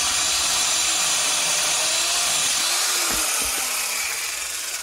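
Worx WG305.1 corded electric chainsaw running at full speed, its chain cutting straight through a rotten stump about 10 inches across with a steady high hiss. About three seconds in there are two low thuds, and the motor then winds down.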